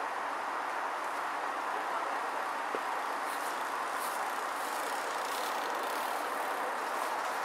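Mountain bike passing close on a dirt forest trail covered in dry leaves: a gritty rustle of tyres on leaves in the middle, over a steady rushing background noise.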